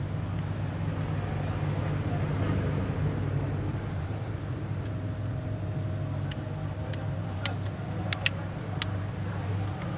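Steady low hum over background noise, with a few small sharp clicks about seven to nine seconds in, as the plastic parts of a small phone are fitted back together.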